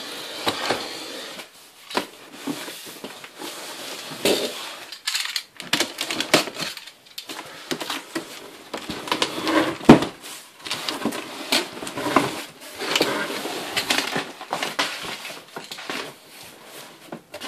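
Box cutter slicing through packing tape on a cardboard box, then the cardboard flaps being pulled open and crumpled packing paper rustling, with many short scrapes and clicks and a sharp knock about halfway through.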